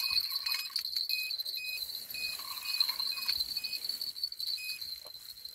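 Crickets trilling steadily in the night, with short high chirps repeating at irregular intervals.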